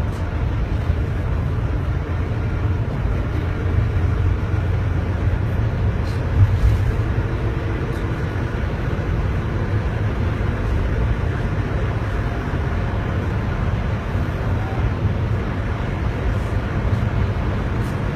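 Steady low rumble of a car driving on the road, engine and tyre noise, with a brief louder bump about six seconds in.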